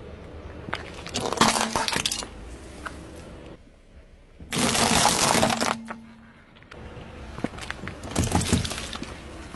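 Car tyre crushing objects on asphalt, three in turn: a small red plastic object cracks about a second in, a group of walnuts cracks and breaks about halfway through, and drink cartons are crushed near the end.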